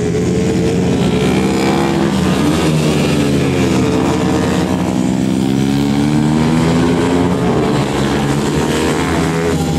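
Several four-stroke geared racing motorcycles at full throttle. Their engines rev up and drop back over and over as the riders shift gears and brake for corners, with more than one engine pitch heard at once.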